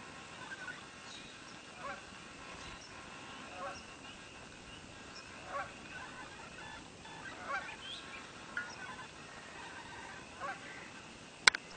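Short bird calls at irregular intervals over a faint steady background. A single sharp click near the end is the loudest sound.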